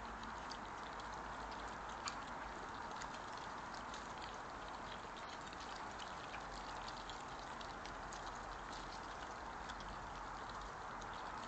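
European badgers foraging and chewing food off the grass: many small, irregular crunching clicks, one louder about two seconds in, over the steady hiss of a trail camera's microphone.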